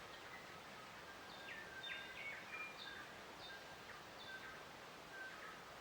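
Faint birdsong: a scatter of short chirps and quick whistles, busiest in the first half, over a soft steady hiss of outdoor ambience.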